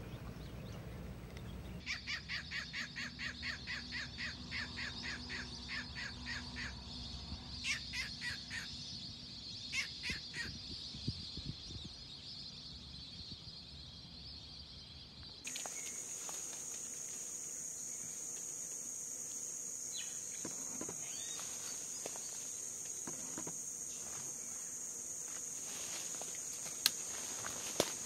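A bird calling in a fast run of repeated notes, about three a second, then in two short bursts, over a steady high insect buzz. About halfway through, the scene switches to a louder, shriller, steady insect drone with a few light ticks.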